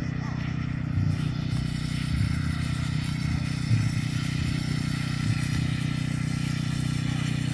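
Large-scale model airplane engine running steadily, a continuous motor drone with no pauses.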